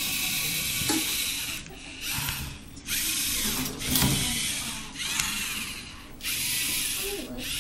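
LEGO Mindstorms robot's motors and gear trains whirring in about six short runs, each under two seconds, with brief pauses between them as it drives and works its attachments.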